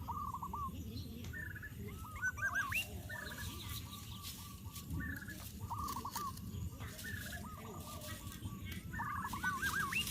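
A bird calling over and over: each call is a short quick run of hooked notes, repeated every second or two, with scattered clicks.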